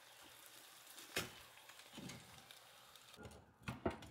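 Metal tongs turning hot pork ribs in an air fryer basket: a faint sizzle with a click about a second in and a few sharper clicks and knocks of metal on the basket near the end.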